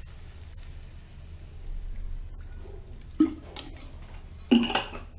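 Water poured from a glass into a kadhai of chopped tomatoes, splashing onto them, followed by two short, sharp sounds about three and four and a half seconds in.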